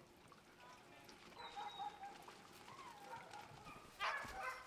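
A pack of sled huskies yelping and howling, with a louder burst of barks and yips about four seconds in.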